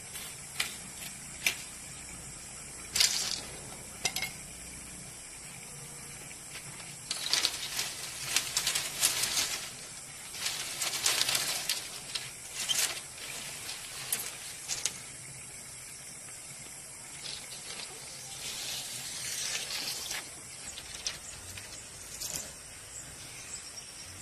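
Split bamboo strips clattering and scraping against each other and on a concrete floor as they are picked up and laid out, in irregular bursts with a few sharp knocks.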